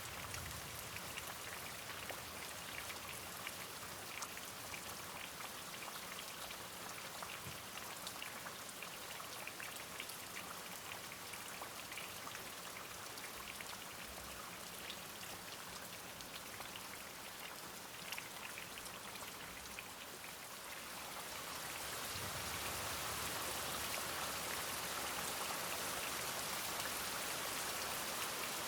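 Steady rain with individual drops pattering, swelling heavier about three quarters of the way through.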